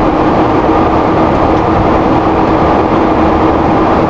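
Steady flight-deck noise of a Boeing 767 taxiing: an even, continuous rush with a steady hum running through it.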